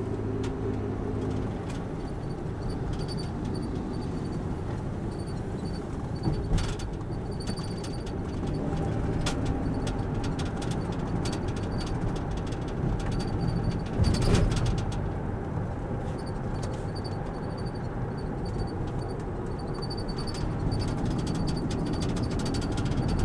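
Car driving, heard from inside the cabin: a steady engine and tyre rumble. A faint regular ticking comes in stretches, and there is a brief louder bump about fourteen seconds in.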